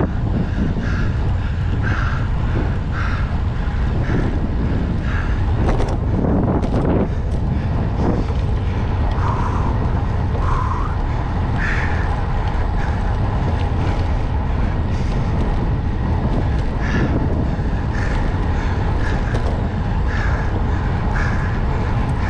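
Steady wind rushing over the microphone of a camera on a road bicycle ridden at speed, with several short knocks about six to eight seconds in.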